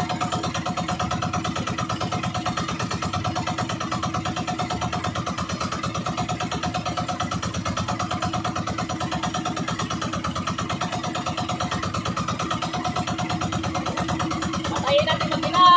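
Outrigger fishing boat's engine running steadily under way, an even fast pulsing at constant speed. A short, rising voice-like call near the end.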